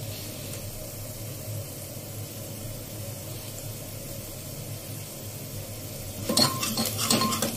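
Spiced tadka sizzling gently in an open pressure cooker; about six seconds in, a long-handled spatula starts stirring it, scraping and clattering against the pot.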